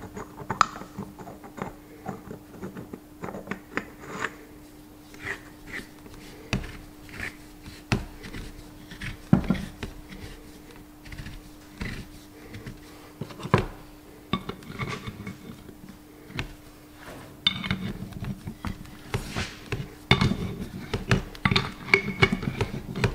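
Scattered metallic clicks and clinks of steel parts being handled and fitted onto a Massey Ferguson 135 front wheel hub on a workbench, with a faint steady hum underneath. Near the end the clinking gets denser as an adjustable spanner works on the hub nut.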